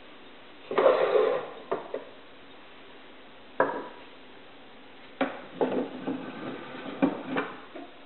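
Light wooden trays being lifted out of a wooden box and set down on a table: a clatter about a second in, a single knock near the middle, then a run of knocks and small clatters in the second half.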